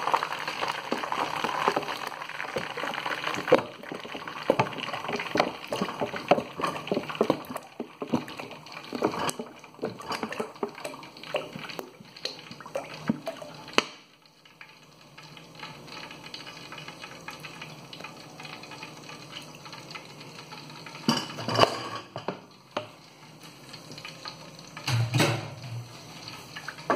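Used frying oil poured from a plastic bottle into a pot of hot oil and melted rosin, the foaming oil bubbling while a wooden spoon stirs with small clicks against the pot. About halfway the pouring and stirring stop, leaving a quieter steady simmering hiss, with a few knocks of the spoon near the end.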